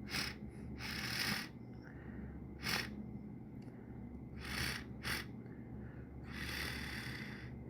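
A person sniffling and breathing through the nose: about six sniffs and breaths, some quick and sharp, others drawn out for about a second, the nasal sniffles of a tickle being worked toward a sneeze.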